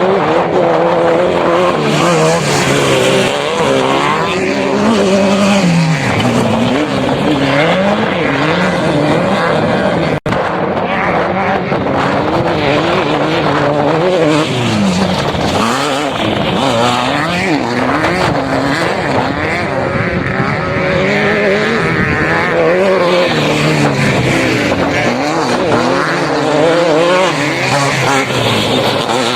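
Engine of an off-road vehicle revving up and falling back again and again as it is driven, with a brief break in the sound about ten seconds in.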